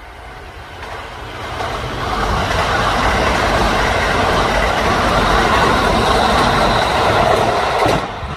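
Kintetsu electric train passing by at speed, a rushing rumble of wheels on rail. It builds over about two seconds, holds loud, then falls away near the end.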